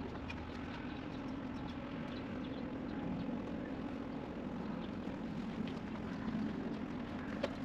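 A vehicle engine running steadily at a low, even hum, with a few faint clicks over it.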